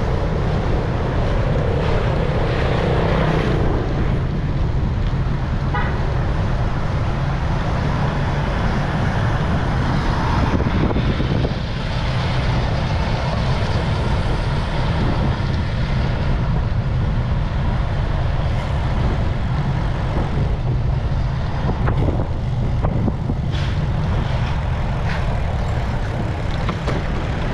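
Steady rumble of wind on a GoPro's microphone while riding a bicycle on a road, with motor traffic; a vehicle passes in the first few seconds, its pitch falling.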